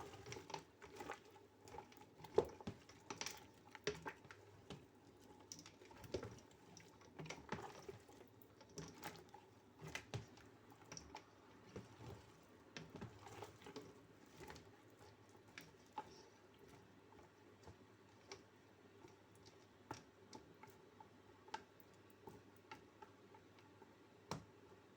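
Pot of chicken feet in water cooking on the stove: faint, irregular small clicks and pops, busier in the first half, over a low steady hum.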